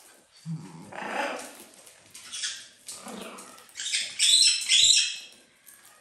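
Pet animals calling: a short, lower call about half a second in, a few softer calls, then a run of loud, high-pitched cries between about four and five seconds in.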